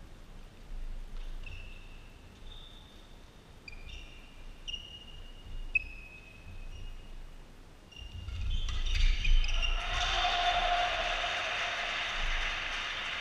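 Badminton doubles rally in a sports hall: sneakers squeaking on the court floor and a few sharp racket hits on the shuttlecock, then audience applause that starts about two thirds of the way through and keeps going.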